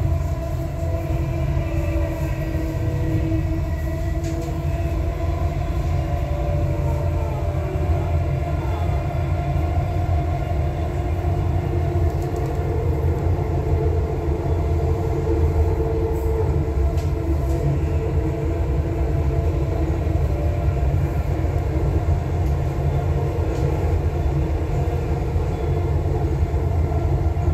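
Electric Dubai Metro driverless train running along elevated track, heard from inside the carriage: a steady low rumble with a hum of several steady tones over it.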